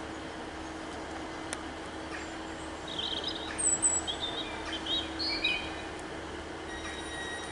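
Small birds chirping in several short, wavering phrases over the steady hum of a diesel multiple unit train standing at the platform. A thin, high steady tone comes in near the end.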